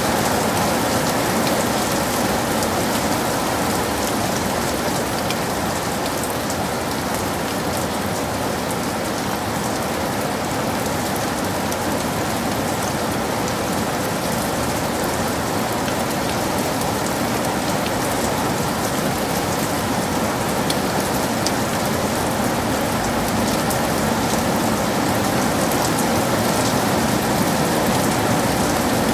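Heavy rain falling steadily: a dense, even hiss, with many individual drops striking close by.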